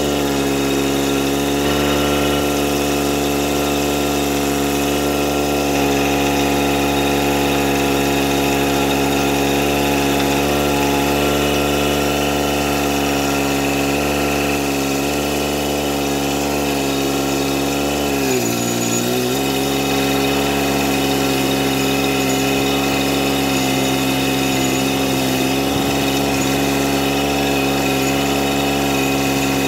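Dingo compact utility loader's engine running steadily while it drives, carrying a cube of brick on its forks. About 19 seconds in, the engine note drops briefly and then comes back up.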